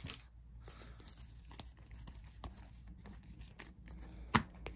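A stack of football trading cards being handled and thumbed through, with faint scrapes and light ticks as the cards slide over each other. One sharp card snap near the end.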